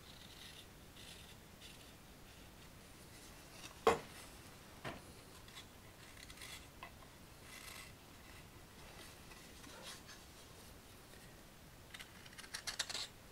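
A carving knife taking short, soft scraping cuts in a green walnut ladle, with a sharp knock about four seconds in and a quick run of small clicks near the end.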